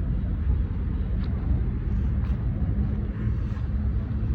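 Steady low rumble of road traffic, with wind buffeting the microphone.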